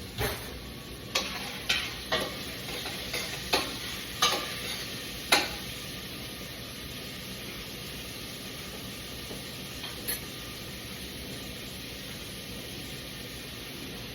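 Chopped vegetables, peppers among them, sizzling in hot oil in a pan. A utensil stirs them, knocking against the pan about eight times in the first five seconds, then the sizzle goes on steadily.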